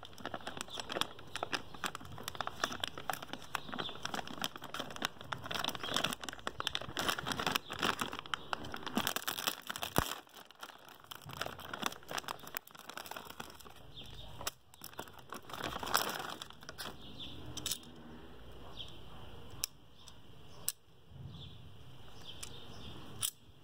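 Thin clear plastic bag crinkling and tearing as it is opened by hand. The rustling is dense for roughly the first half, then thins out to scattered crackles as the part is worked free of the bag.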